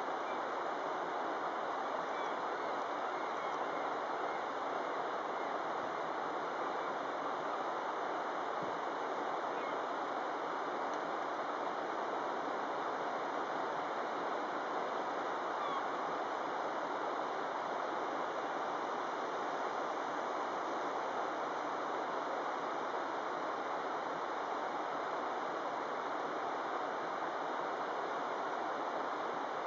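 Fast river water rushing steadily over rocks and through rapids.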